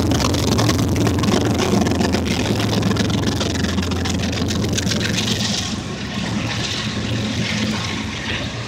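Freight train of autorack cars rolling past: steady rumble of steel wheels on the rails, easing a little in loudness after about six seconds.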